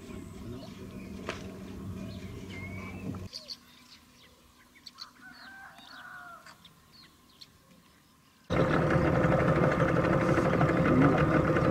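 A boat's motor runs with a low hum and cuts off about three seconds in. Birds chirp and call over the quiet that follows. Near the end the motor comes in suddenly and runs loudly and steadily.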